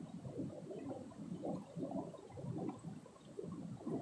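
Shallow stream water gurgling and burbling over rocks, an uneven, low bubbling that runs on without pause.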